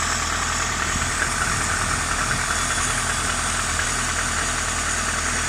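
Warmed-up car engine idling steadily with a rumbling knock from inside it. The owner cannot trace the cause; the alternator and pulleys have been checked and ruled out.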